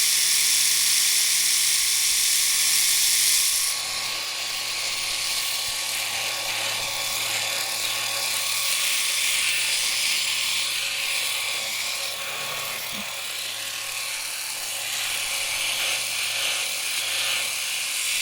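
Electric shaver running with a steady buzz. It is brighter and louder for the first few seconds, then runs on a little quieter.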